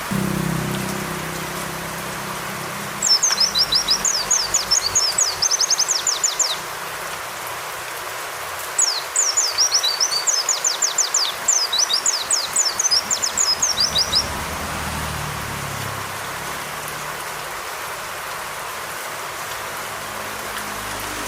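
White-eye (pleci) singing in two long runs of rapid, high chirping notes, separated by a pause, over a steady hiss of rain.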